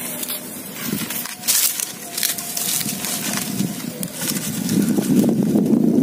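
Dry grass and corn stalks rustling and crackling as they are trampled and pushed aside by hand, in a run of short irregular crackles.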